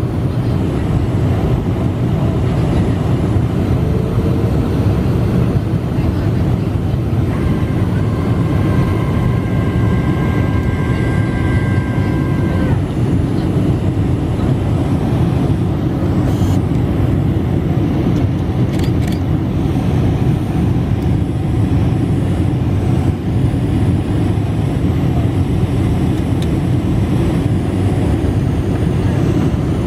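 Steady rumble and rush of a Qantas Boeing 747's engines and airflow, heard inside the passenger cabin over the wing. About seven seconds in, a faint high steady whine joins it for roughly five seconds.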